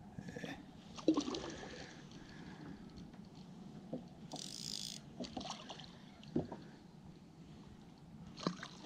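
Small water splashes and light knocks at a fishing kayak's side as a small hooked bass is brought alongside, with a short burst of splashing about four seconds in.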